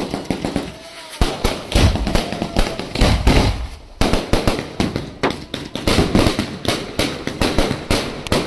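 Fireworks display: aerial shells and cakes bursting overhead in a rapid, continuous string of bangs and crackles, with deeper booms about a second in and again about three seconds in.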